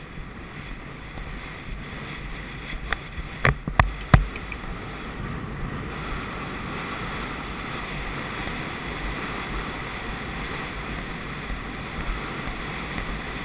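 Steady rushing of wind on a camera microphone carried on a galloping horse, with a few sharp knocks about three and a half to four seconds in.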